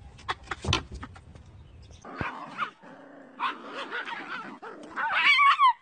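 A young pet's high-pitched whining and yips, with a few sharp clicks in the first second; the loudest, most wavering cry comes near the end.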